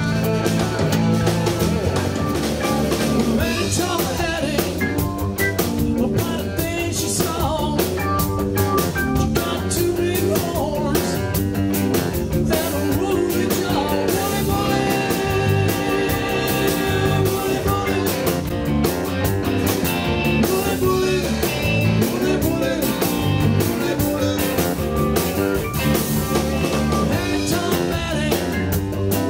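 Live rock band playing: electric guitars, electric bass, drum kit and keyboard together, with steady loud playing throughout.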